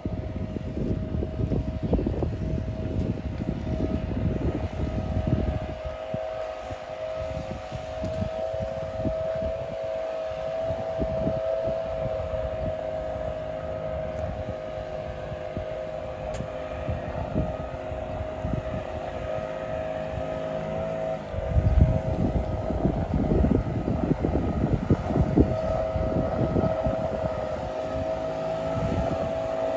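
Small quadcopter drone flying nearby: a steady high propeller hum that wavers briefly about two-thirds of the way through, with wind buffeting the microphone in gusts.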